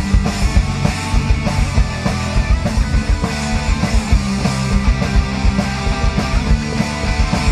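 Live rock band playing an instrumental passage: electric guitar over bass and drums with a steady beat.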